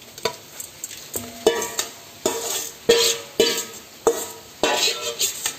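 Steel spoon knocking and scraping against a steel mixing bowl, roughly two strokes a second, as marinated chicken is scraped out of it into a hot uruli pan. The bowl rings briefly after each knock, with a soft sizzle from the pan.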